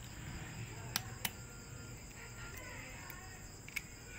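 Eggshell cracking and breaking by hand as a hen's egg is broken open: three sharp ticks, two close together about a second in and one near the end, with faint chirping in the background.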